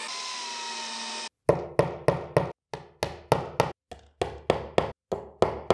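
Cordless drill/driver whining steadily as it drives a screw-in dowel into chipboard, stopping about a second in. After a short gap, a hammer taps dowels into their holes in the wooden drawer front: a quick run of about fourteen sharp strikes, roughly three a second.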